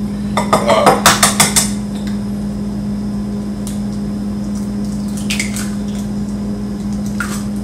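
Kitchen dishes and utensils clattering in a quick run for a second or so, then a few single clicks, over a steady low hum.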